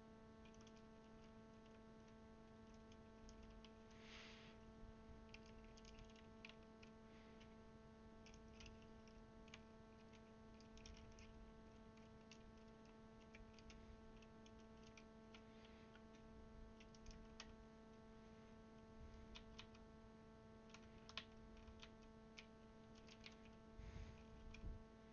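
Faint, irregular small clicks of plastic keycaps being pressed onto a mechanical keyboard's Cherry switches, over a steady electrical hum; a slightly louder knock comes near the end.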